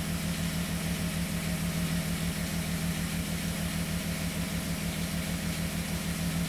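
1998 Volkswagen Eurovan six-cylinder engine idling steadily with an even low pulse. It is misfiring on cylinder 4, whose fuel injector is drawing no current.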